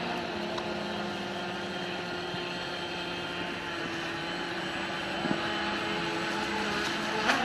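Radio-controlled electric model boats running on the water, their motors giving a steady, slightly wavering whine. A sharp click comes near the end.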